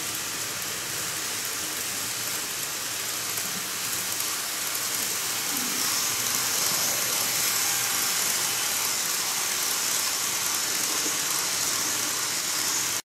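KATO N-gauge KiHa 283 series model train running along its track: a steady hissing whir of its wheels and motor that grows louder about halfway through as the cars pass close by.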